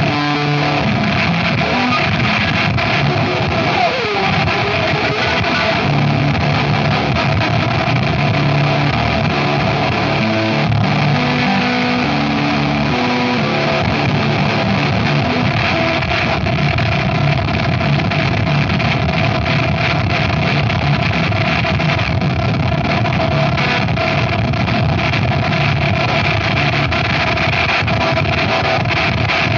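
Harsh noise wall: a dense, unchanging wall of distorted noise at a steady loudness. In the first half a few low pitched tones step about beneath it, and a brief gliding tone comes through about four seconds in.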